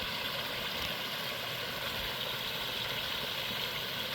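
Koi pond waterfall running: a steady, even rush of falling water.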